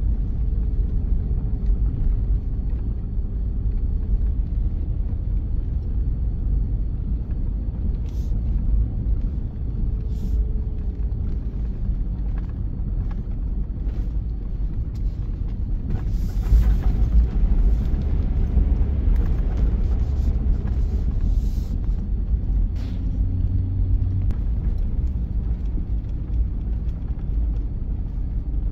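Truck driving slowly on a gravel road, heard from inside the cab: a steady low rumble of engine and tyres, with scattered short clicks and knocks. It gets rougher and louder for a couple of seconds about halfway through.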